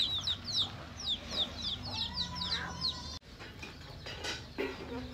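Chicks peeping: a quick run of short, falling high chirps, several a second, that breaks off about three seconds in, leaving fainter yard noise.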